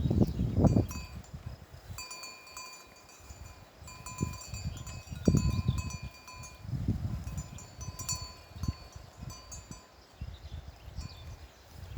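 Bells on goats in a herd clinking and ringing repeatedly with short metallic rings, over loud low rumbles that come and go.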